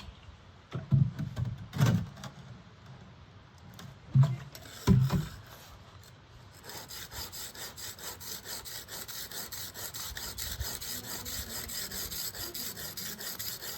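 A few heavy knocks, then a steel blade stroked quickly back and forth on the coarse side of a wet whetstone, an even rasping rub at several strokes a second.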